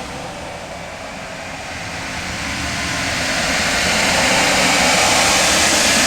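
Loud synthetic 'outer space' ambience: a dense rushing noise over a low rumble. It swells steadily louder from about a second in.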